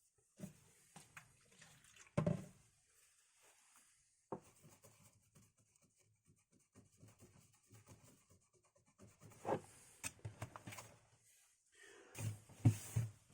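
Irregular rubbing and small knocks of hand-cleaning old thermal paste off a laptop's heatsink and chips with isopropyl alcohol, with a louder knock about two seconds in and a few more near the end.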